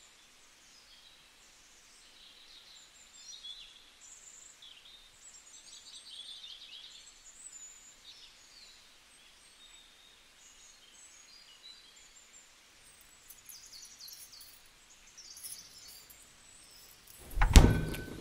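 Faint birds chirping over quiet outdoor background noise. Near the end, a short loud thump.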